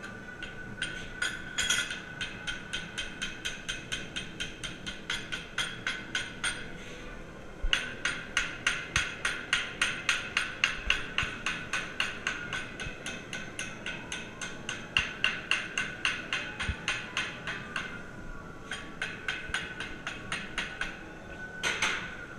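Hand hammer striking the hot steel neck of a forged putter head held in a post vise, bending it to set the loft and lie angles. The blows come quickly and evenly, about three to four a second, in two long runs with a brief pause between, then one louder blow near the end, over a steady high tone.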